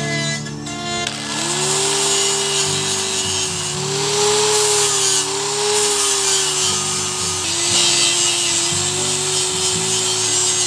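Handheld electric power tool working on metal: a loud whine with a rough hiss, wavering slightly in pitch as the load changes. It starts about a second in and runs over background music.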